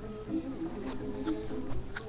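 Soft background music with held notes that shift in pitch, and a few faint clicks about a second in and near the end.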